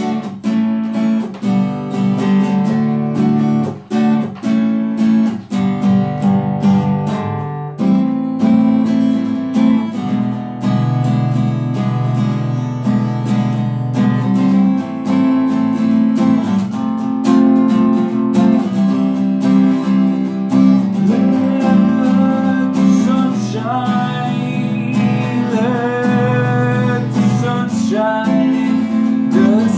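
Acoustic guitar strummed, with sharp, separate strums over the first several seconds and then fuller ringing chords. A man's voice comes in singing over the last several seconds.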